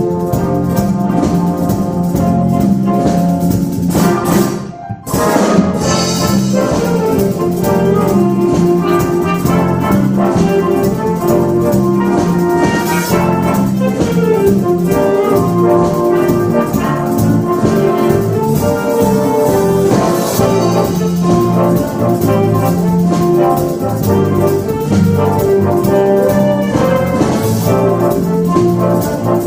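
Big band playing live: trombones, saxophones and trumpets over electric bass, guitar and congas. The band stops briefly about five seconds in and comes back in with a cymbal crash.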